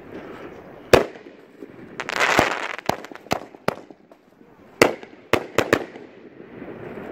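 Fireworks cake firing aerial shells: a string of sharp bangs, several in quick succession near the middle, with a short burst of crackling about two seconds in.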